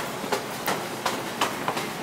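Footsteps climbing concrete stairs in a tiled stairwell, a quick, even step about three times a second over steady background noise.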